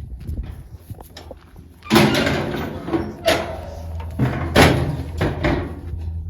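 Metal corral gates and panels clanging and banging. It starts with a loud crash about two seconds in, then several more bangs and rattles.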